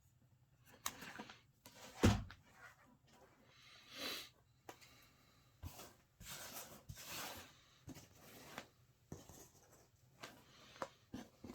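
Rustling and scraping of rope and tools being handled, in short irregular bursts, with one sharp thump about two seconds in.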